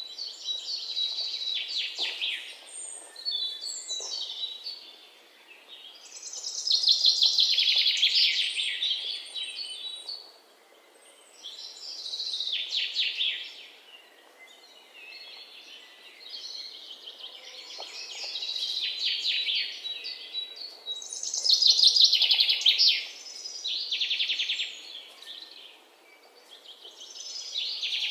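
Songbirds chirping and trilling, in phrases of rapid high chirps that swell and fade every few seconds.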